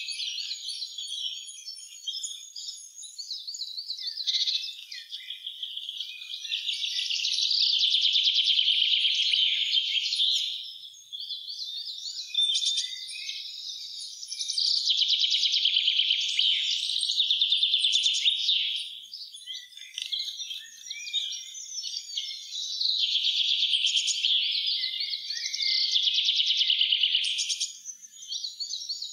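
Songbirds singing in a spring woodland chorus. A loud, rapidly trilling song of three to four seconds comes back about every eight seconds, with other birds' shorter chirps and calls in between.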